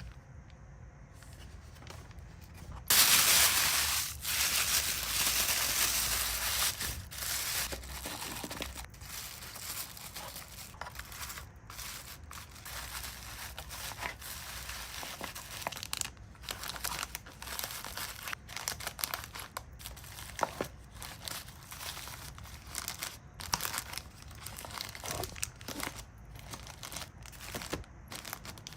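Packaging material being handled, crinkling and crackling in irregular bursts. A loud, continuous crinkling or tearing stretch comes a few seconds in and lasts about four seconds, then gives way to scattered crackles and clicks.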